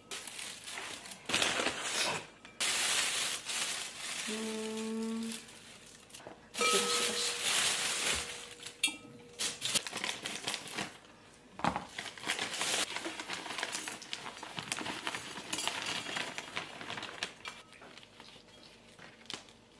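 Plastic bags and a bag of potting soil crinkling and rustling as they are handled and cut open with scissors, with light knocks of a ceramic plant pot on the table. A couple of brief squeaks come about four and seven seconds in.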